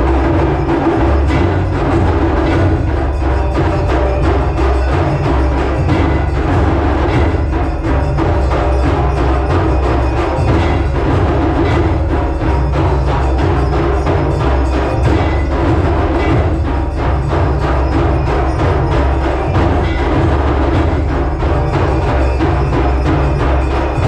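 Loud traditional Indian temple percussion: drums beaten in a dense, fast, unbroken rhythm.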